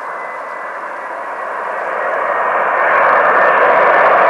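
Boeing 747's jet engines on landing approach: a steady rushing noise with a thin high whine, growing louder over the first three seconds as the jet comes closer, then holding.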